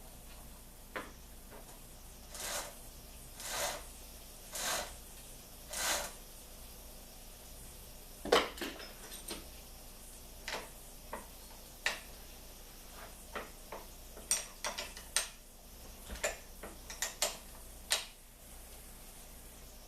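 Hand tools and metal chainsaw parts being handled. There are four short scraping sounds about a second apart, then scattered sharp metal clinks and clanks.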